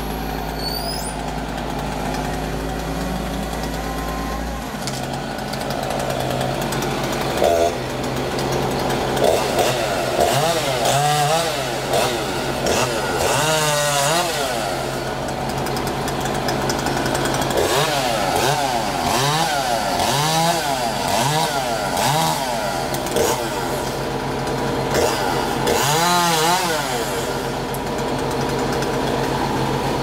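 Chainsaw revving up and down again and again as it cuts, starting several seconds in, over the steady running of a crane truck's engine.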